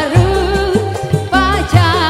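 Live dangdut band music: a wavering lead melody with heavy vibrato over a bass line and a steady drum beat.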